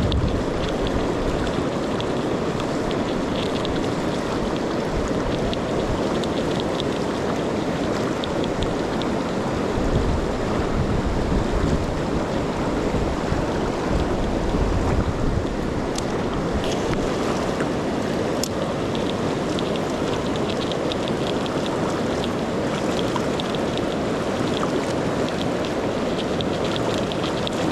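River water rushing steadily, with gusts of wind buffeting the microphone now and then and a few sharp clicks about two-thirds of the way through.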